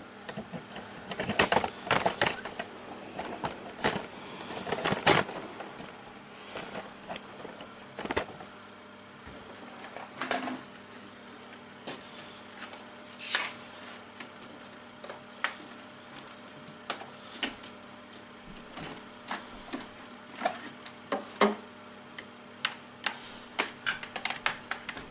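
A vacuum cleaner being handled with its motor off: irregular clicks, taps and knocks of its parts being moved and fitted, over a faint steady hum.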